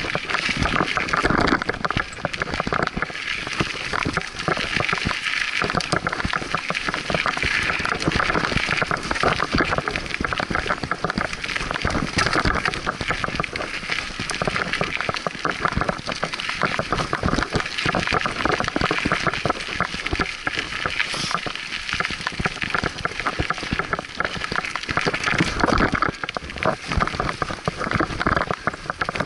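Scott Aspect 35 hardtail mountain bike riding fast down a dirt singletrack: tyres rolling over dirt and roots, with continuous rapid clattering from the bike and wind rushing over the microphone.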